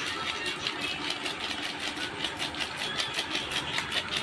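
Raw chicken being mixed by hand with spice powder in an aluminium bowl: rhythmic squishing and rustling strokes, about four a second, which stop near the end.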